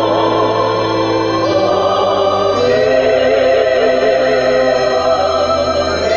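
Electronic keyboard playing a hymn in slow, sustained chords over held bass notes, with choir-like voices carrying the melody.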